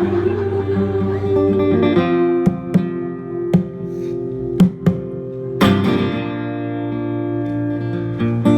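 Live band playing an instrumental passage, led by strummed acoustic guitar over held chords, with several sharp hits between about two and six seconds in.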